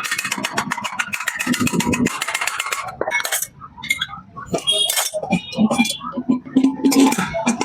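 Metal clinking and scraping from work on pressure cooker parts: a rapid run of tapping for the first three seconds, then scattered clinks with brief ringing.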